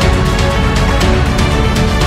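Background music with a steady beat and heavy bass.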